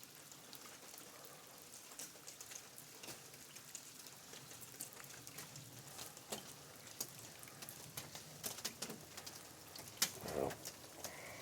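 Faint, scattered drips and ticks of water. A dove coos briefly about ten seconds in.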